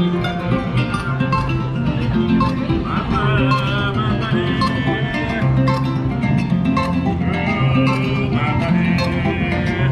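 Background music led by plucked acoustic guitar, busy and upbeat, with a wavering melody line rising above it about three seconds in.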